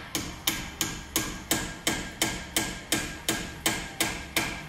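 Hammer tapping steadily on the front brake caliper's metal hardware, about three strikes a second, each with a short metallic ring.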